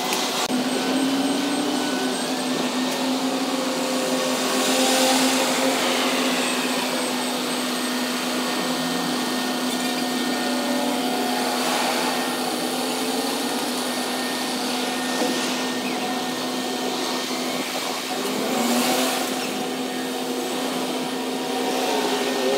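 Mobile crane's engine and hydraulics running steadily under load while hoisting a steel frame: a constant mechanical drone with a steady hum.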